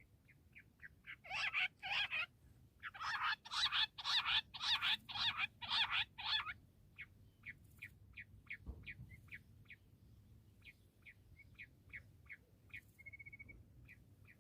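Bush quail calling: short high chirps, then from about a second in a run of about ten loud, harsh calls, then a steady series of thin chirps at about three a second.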